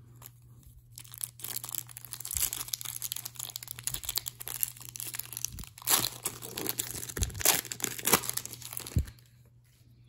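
Plastic wrapper of a hockey card pack crinkling and tearing as it is opened by hand, a run of crackles with sharp clicks that is loudest past the middle and dies away about a second before the end.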